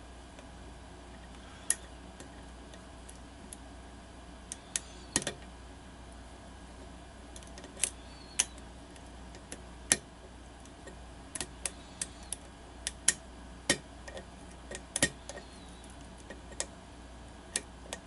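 Small metallic clicks and ticks of a lock pick working the pin stack of a challenge lock held under tension, irregular and sparse at first, coming more often in the second half, as the picker tries to set pins and work the lock past a false set.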